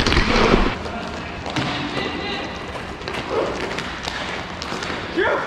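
Roller hockey play: sticks and puck clacking and scattered knocks on the tiled rink, with faint distant voices. A loud rush of wind on the microphone for the first moment, then quieter.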